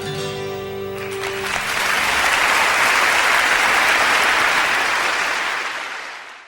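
The final chord of a country song rings out and dies away in the first second and a half, while audience applause rises, holds, and then fades out near the end.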